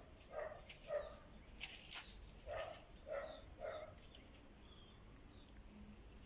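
Kitten meowing from up a tree where it is stuck and afraid to climb down: five short calls in two runs, the last about four seconds in. A sharp click or rustle sounds between the runs.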